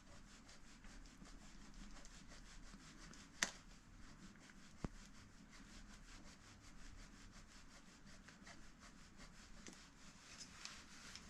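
Faint rubbing and fine ticking of a bicycle pedal's greased spindle being screwed by hand into the crank arm threads, with two sharper metal clicks about three and a half and five seconds in.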